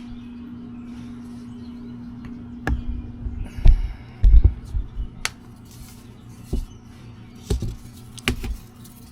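Irregular knocks, taps and clicks from handling a window screen frame while pulling the old, dry-rotted rubber spline out of its channel with a hook. The loudest knocks fall in the middle. A steady low hum stops about a third of the way through.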